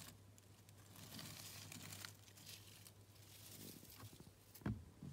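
Near silence: faint rustling and crinkling over a low steady hum, with two short soft knocks near the end.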